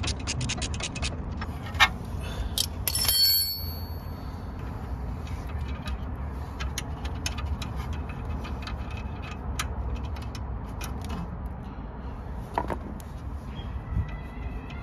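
Ratcheting spanner clicking rapidly for about a second as a brake caliper bolt is wound out, followed by a few metal clinks of spanners and bolts, one ringing briefly about three seconds in, then scattered light ticks of hands working on the caliper.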